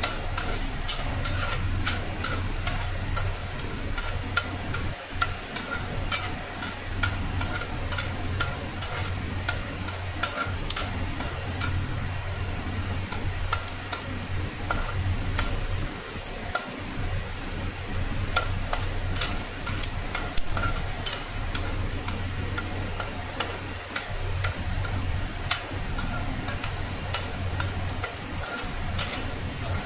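Peanuts frying in hot oil in an aluminium kadhai, stirred with a perforated steel skimmer that clicks and scrapes against the pan many times, over a faint sizzle. A steady low hum runs underneath.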